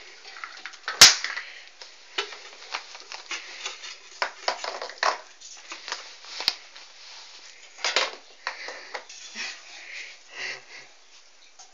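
Irregular rustling, clicks and small knocks of a toddler handling Easter eggs and toys, with one sharp knock about a second in.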